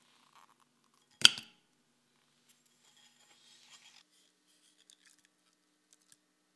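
Soft cream cheese going into a glass bowl: one sharp clink of the glass about a second in, then faint scraping and small clicks as the cheese is pushed in.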